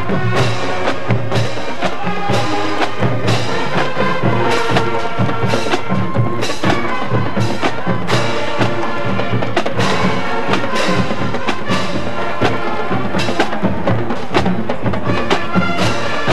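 Marching band playing a field show: brass with a drumline, the drums striking sharply several times a second.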